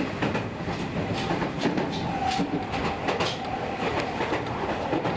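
Meitetsu express train car running between stations, heard from inside the passenger cabin: a continuous rumble of wheels on track with several sharp clicks from the rails.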